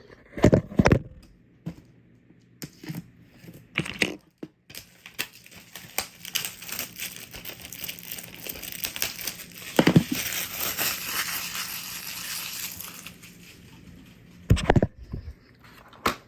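A plastic DVD case being opened and handled: plastic crinkling and crackling for several seconds, with clicks and a few sharp knocks of the case.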